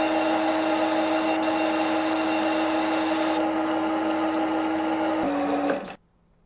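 Simulated machining sound from CNC simulator software: a steady machine hum with a hiss over it. The hiss stops about three and a half seconds in, the hum steps down in pitch near five seconds, and then the sound cuts off suddenly, as the simulated machine stops.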